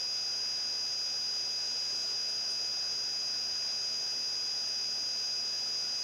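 Steady background hiss with a constant high-pitched electronic whine and a fainter lower whine, unchanging, with no other sound: the recording's own noise floor.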